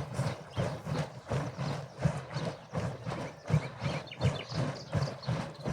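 Milk sloshing inside a leather skin churn as it is rocked back and forth to churn butter, about two strokes a second.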